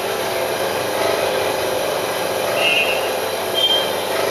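Gemstone polishing machine running steadily in the workshop, a continuous motor whir with a rubbing, grinding edge. Two short high squeaks come over it, about two and a half and three and a half seconds in.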